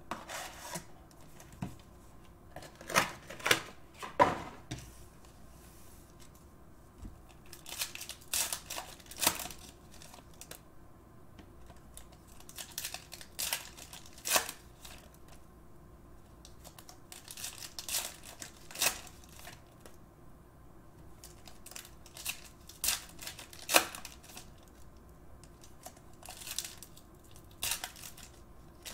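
Foil-wrapped trading-card packs being torn open and their wrappers crinkled, with the cards handled in between, heard as short clusters of crackling every few seconds.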